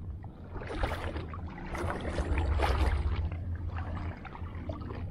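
Footsteps wading through shallow water and soft mud, with irregular splashing and squelching over a steady low rumble.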